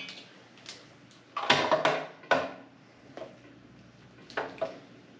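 Clanks and knocks of hard objects being handled and set down: a cluster of loud clatters about a second and a half in, then a few lighter knocks near the end.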